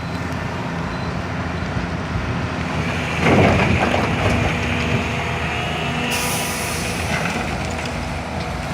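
Heavy excavator's diesel engine running steadily under load, with a louder surge about three seconds in and a high hiss joining about six seconds in.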